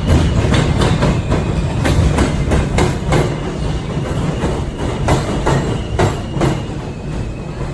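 Passenger train running at speed, heard from aboard: a loud low rumble with the wheels clicking over rail joints a few times a second.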